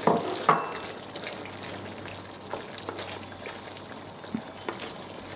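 Thai green curry in coconut cream simmering in a pan, bubbling and popping with scattered small crackles. Two short knocks in the first half-second.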